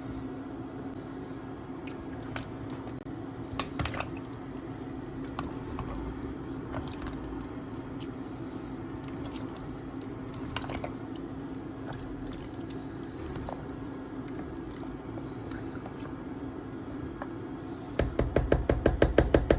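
Pot of banga soup cooking, with wet squishing and bubbling, a few small clicks and a steady hum underneath. Near the end comes a fast, loud run of knocks, about eight a second.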